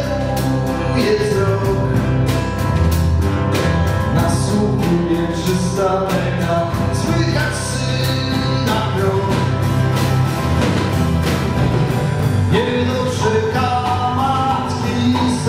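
A band playing a song live, with acoustic guitar, bass guitar and a drum kit keeping a steady beat, and a man singing.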